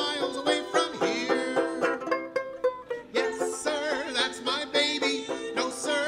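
A 1920s-style band number: a banjo ukulele and a banjo strumming over upright bass, piano and drums, with a woman and a man singing along.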